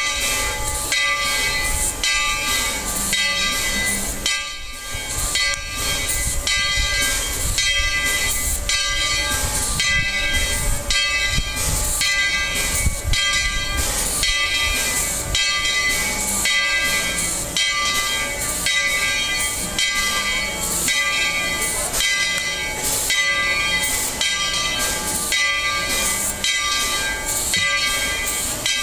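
Steam locomotive No. 12 hissing steam, with a regular beat of about two strokes a second running through it.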